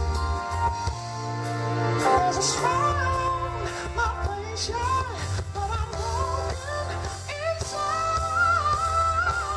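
Live R&B band with drums and bass guitar, a male singer singing over it in long bending runs and holding a long high note near the end.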